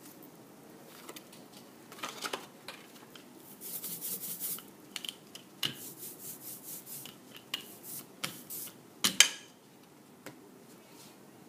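Printmaking tools handled on a work table: an ink brayer and an inked foam printing plate moved over the ink slab and table, making a string of small clicks, scrapes and rustles. The loudest is a single sharp knock about nine seconds in, where the brayer is set down on the slab.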